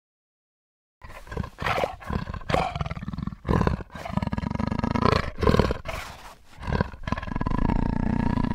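A cheetah's calls: a run of rough, low, growling sounds with several short breaks, starting about a second in.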